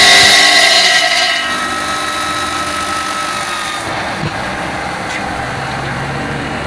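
5-axis CNC stone cutting machine running, loud with a high ringing tone from the saw, then dropping to a quieter steady machine hum a little over a second in.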